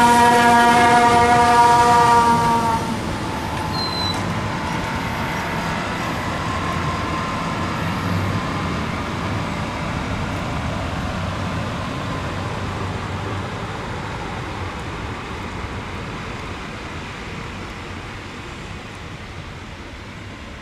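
A train horn sounding one steady tone that cuts off about two and a half seconds in, followed by the noise of a passing train that slowly fades away.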